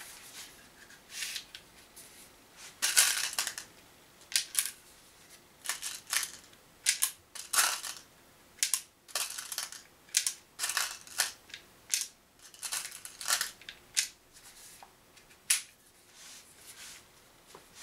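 Irregular clicks, rattles and rustles of hands loading an Umarex HDP50 .50-calibre pistol with aluminium balls, a few handling noises a second, no shot fired.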